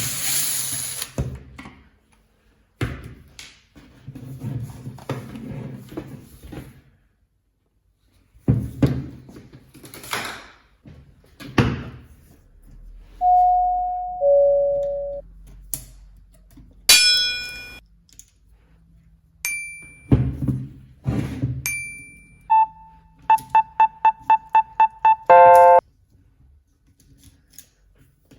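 A series of knocks and thuds, then electronic tones: a two-note falling chime, a few single beeps, and a quick run of about ten evenly spaced beeps near the end.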